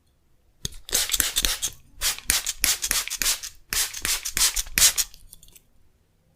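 Hands rubbing during an ASMR massage: a run of crisp, hissy rubbing strokes close to the microphone, a couple to a few strokes a second, which stops about a second before the end.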